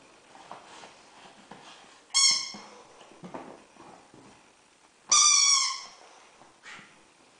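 Rubber squeaky toy squeezed twice in a German Shepherd's jaws, about two seconds in and again about five seconds in, each a loud high squeak of about half a second, with soft chewing and mouthing sounds in between.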